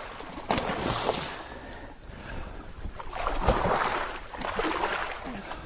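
A big fish thrashing in a landing net at the water's surface beside a boat, splashing in several bursts, the loudest about three and a half seconds in.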